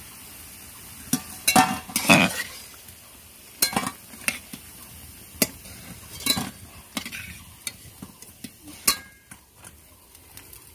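Metal spatula scraping and clinking against a kadai as fried cabbage pakoras are lifted out of hot oil, over the sizzle of the frying oil. A dozen or so sharp clinks come at uneven intervals, the loudest about two seconds in.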